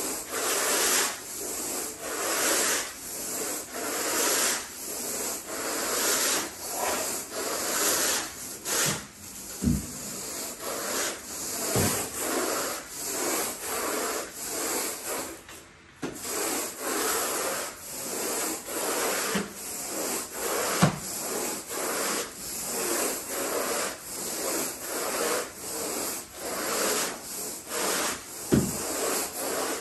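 Carpet rake dragged back and forth through carpet pile: a rhythmic scratchy rubbing, stroke after stroke, with a few dull knocks scattered among the strokes.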